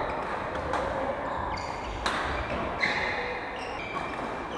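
Badminton rally sounds on a wooden court: a sharp racket hit on the shuttlecock about two seconds in, and shoes squeaking briefly on the floor.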